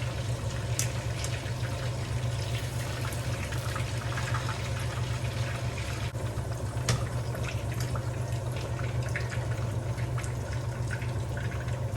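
Tomato sauce cooking in a frying pan: a steady liquid hiss and bubbling, with scattered light clicks and a steady low hum underneath.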